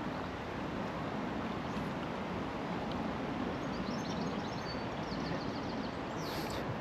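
Steady rush of river water flowing, with faint chirps of a small bird about four to five seconds in.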